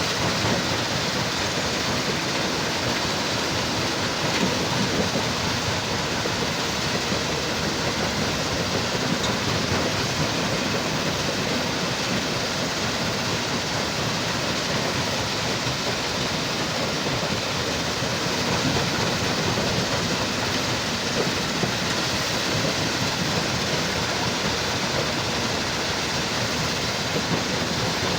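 Heavy machinery at a stone crusher running: a loud, steady, even noise with no breaks or changes.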